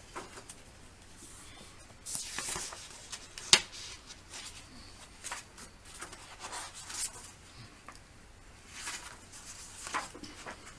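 Paper pages of a large picture book rustling and sliding under the hands as a page is turned, in a series of short swishes, with one sharp tick about three and a half seconds in.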